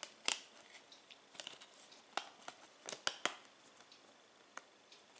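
Sharp plastic clicks and taps at irregular intervals as discs are pressed onto the centre hubs of a plastic Blu-ray keep case.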